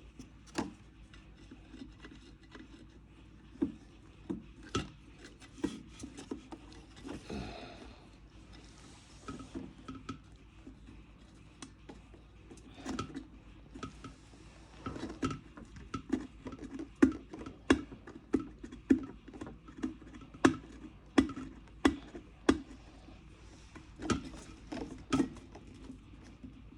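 Scattered clicks and knocks of tools and parts being handled on an electric kettle during repair, coming more often and louder in the second half.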